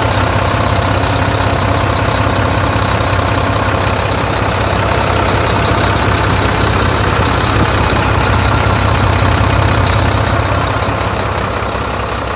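Volvo VNL 670 semi truck's diesel engine idling steadily just after its first start, with an air leak hissing somewhere in the air system.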